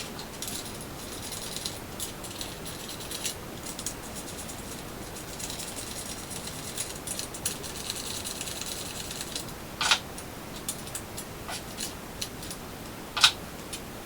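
Hand work with small hard parts: irregular light clicks, scraping and rattling over a steady hiss, with two louder sharp clacks, one about ten seconds in and one near the end.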